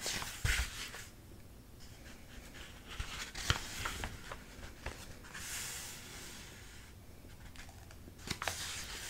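Soft rustling of book pages being handled and turned, coming in several short patches with a few light taps over quiet room tone.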